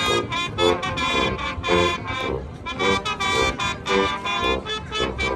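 Marching band brass playing a tune of short, separated notes in a quick, steady rhythm.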